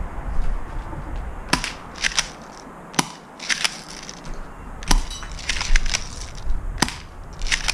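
Footsteps crunching over rubble and debris, with about a dozen sharp cracks and clicks at irregular intervals, some in quick clusters.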